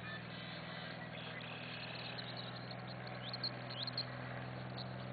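Cessna 172's piston engine and propeller droning steadily as the plane climbs away after take-off. A few short high chirps come about three and a half to four seconds in.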